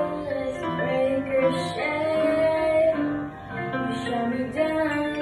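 Music: a singing voice carrying a slow melody of held notes over instrumental accompaniment.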